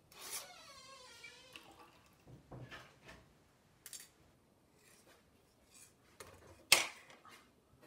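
Mint lemonade poured from the blender jug into a glass for a second or two, followed by a few light knocks of kitchenware and one sharp, loud knock near the end.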